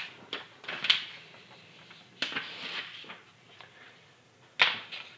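Paper sheets being slid and laid down on a desk: a few soft rustles and knocks, with a sharp tap about a second in and another near the end.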